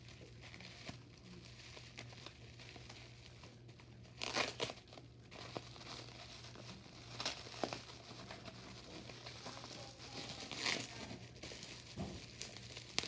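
Plastic packaging crinkling and rustling in several short bursts a few seconds apart, over a faint steady low hum.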